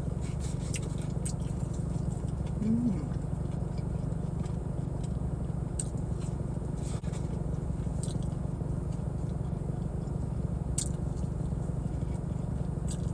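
Chewing and small mouth clicks from eating, over a steady low rumble from the car left running, which she takes for the air conditioning.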